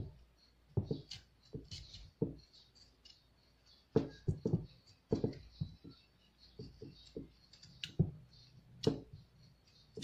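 Small paring knife cutting into a raw chayote: a string of short, irregular crisp cuts with brief pauses between them.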